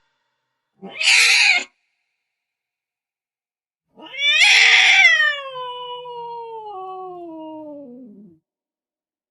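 Domestic cat vocalizing: a short raspy call about a second in, then a long drawn-out meow that falls steadily in pitch and trails off over about four seconds.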